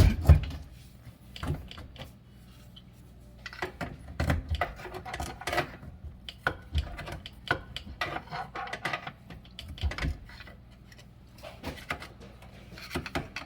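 Irregular knocks and rattles as an old built-in dishwasher is pulled and worked loose from its cabinet opening, with a heavy thump right at the start.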